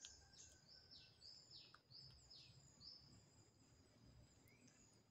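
Faint bird song: a quick run of about eight high whistled notes, each falling in pitch, over the first three seconds, against a steady thin high tone.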